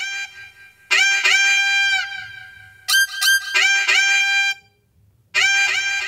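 Saxophone playing a short jingle: quick phrases of notes that slide up into pitch, separated by brief pauses. After about a second of silence another sax phrase begins near the end.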